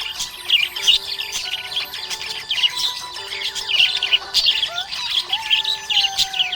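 Budgerigars chirping and chattering: many short, rapid chirps overlapping without a break.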